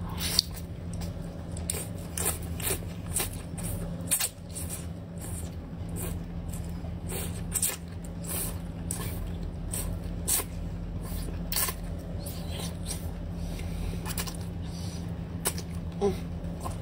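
Wet mouth sounds of eating a whole marinated octopus: slurping and sucking the tentacles, with sharp wet clicks and smacks at irregular intervals over a steady low hum.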